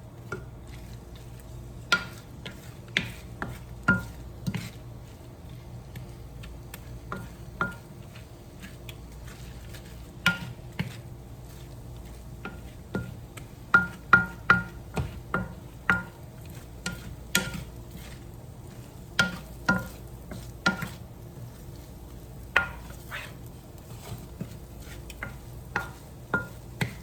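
A metal spatula knocking and scraping against a pan as fried rice is stirred and pressed down, in irregular strikes that each ring briefly. The rice sizzles faintly underneath.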